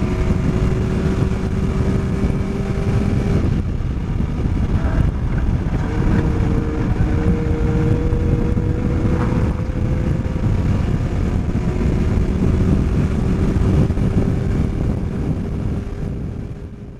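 Caterham Seven race car's engine at speed, heard onboard over heavy wind and road rumble: the engine note climbs steadily under throttle, drops away about three and a half seconds in as the driver lifts, picks up again around six seconds, breaks briefly near ten seconds and climbs again before fading out at the end.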